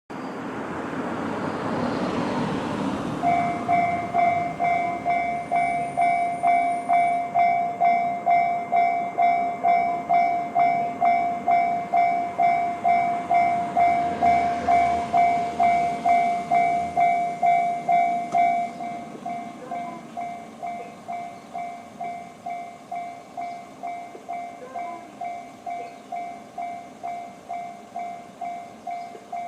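Railway level-crossing alarm with the JR standard electronic bell sound, ringing about twice a second. It starts about three seconds in, after a swelling rushing noise, and drops clearly in volume about two-thirds of the way through.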